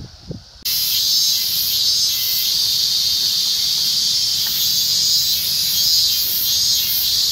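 Loud chorus of cicadas, a dense, high-pitched shrill buzz that starts suddenly under a second in and then holds steady, with a slight pulsing in its highest part.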